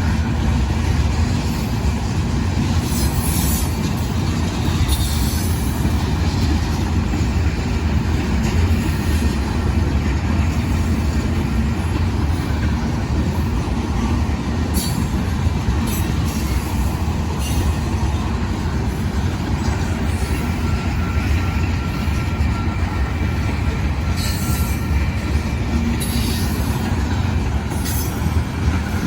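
Union Pacific rock train's loaded freight cars rolling past with a steady low rumble, and a few brief high squeals from the wheels on the rails.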